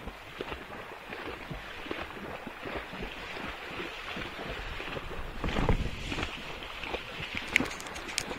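Tennessee Walking Horse wading through a shallow creek: hooves splashing and sloshing in the water at an irregular pace, with wind rumbling on the microphone. A louder surge of splashing comes a little past halfway.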